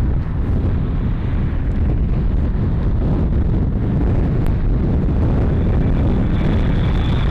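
Boeing 777 jet engines rumbling as the airliner comes in to land, with wind buffeting the microphone; the noise grows brighter and louder near the end as the aircraft draws closer.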